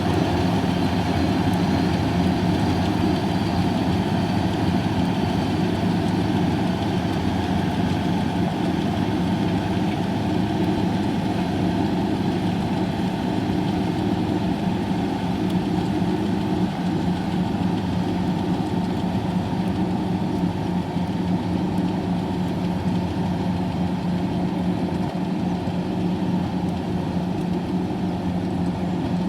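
Kubota rice harvester's diesel engine running steadily, with an even, unbroken drone.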